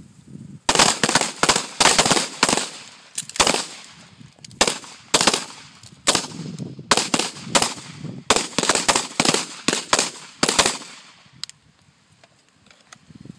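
Rapid pistol fire from a firing line: strings of sharp shots in quick succession with short breaks between strings, stopping about eleven seconds in.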